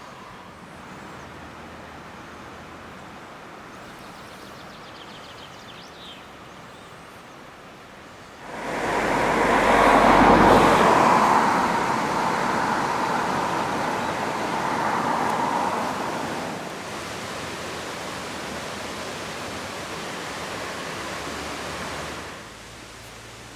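Rushing mountain water, a steady hiss-like rush. About a third of the way in it jumps abruptly much louder, then eases down in steps and falls back to its earlier level shortly before the end.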